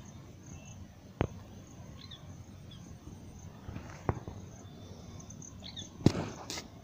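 Rural outdoor ambience: a steady high insect drone with a few faint short bird-like chirps, broken by three sharp clicks spaced a few seconds apart. A louder, noisy rustle starts near the end.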